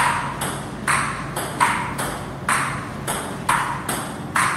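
Table tennis rally: the ball clicking off the paddles and the table in turn, about two sharp pings a second, each ringing briefly in a hard-walled room. A low steady hum runs underneath.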